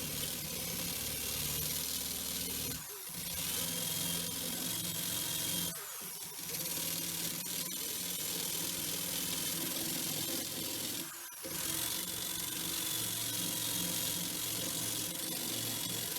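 Electric power tool running steadily, with short breaks about three, six and eleven seconds in.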